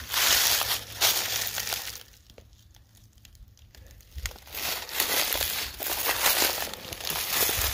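Footsteps crunching and crackling through dry fallen leaves and twigs, with a pause of about two seconds near the middle before the walking resumes.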